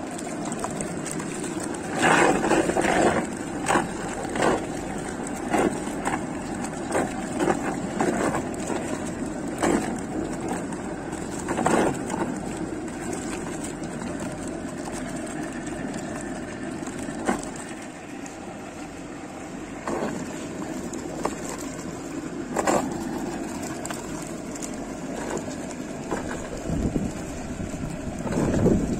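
Electric butter churn running: its motor hums steadily while the stainless steel drum churns diluted yogurt with ice water into butter. Irregular splashes and knocks come often in the first half and more sparsely later.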